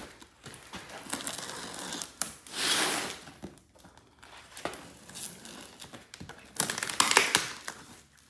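Packing tape being peeled and ripped off a cardboard shipping box, with the cardboard rustling and scraping under the hands; two louder rips, one about two and a half seconds in and one near the end.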